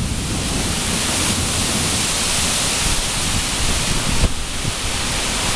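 Heavy rain pouring down in a severe storm with strong wind, a steady loud rush, and gusts buffeting the microphone with low rumbling.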